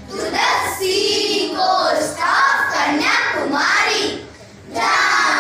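A group of children's voices reciting together in unison in a sing-song chant, with a short pause near the end.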